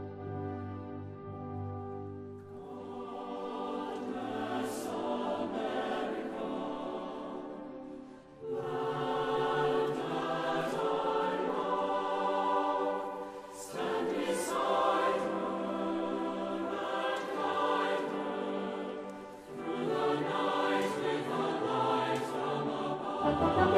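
Background music: a choir singing long, held phrases over orchestral accompaniment, with short breaks between phrases about every five to six seconds.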